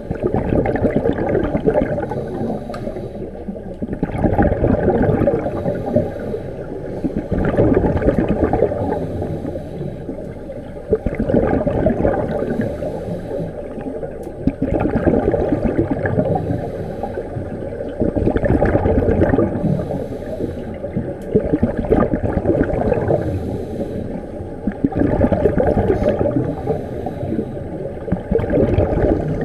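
Scuba regulator exhaust bubbles heard underwater: a rush of bubbles swelling with each exhaled breath, about every three to four seconds.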